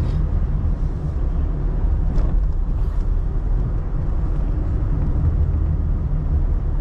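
Steady low rumble of a moving vehicle: road and engine noise, unbroken throughout.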